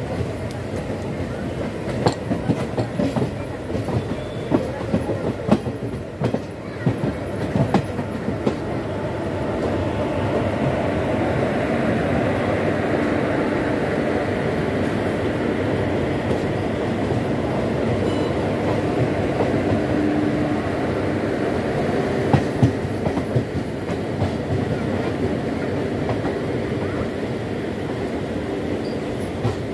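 Indian Railways express passenger coach rolling through a rail yard, heard from an open coach window: irregular wheel clacks and jolts over rail joints and points for the first several seconds. About ten seconds in it turns into a steadier, louder rolling rumble with a faint held whine.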